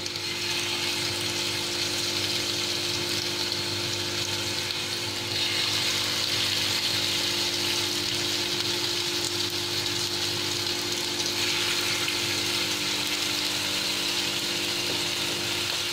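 Chicken seekh kababs sizzling in oil and ghee on a hot ridged grill pan, a steady hiss that grows louder about five seconds in as more kababs go into the pan.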